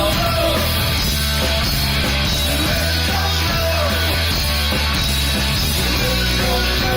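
Rock band music at a steady, loud level, with sustained bass notes under shifting melodic lines.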